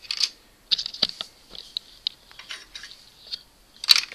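Plastic LEGO pieces handled by fingers: light irregular clicks and short rustling scrapes, with sharper clicks about a second in and again near the end.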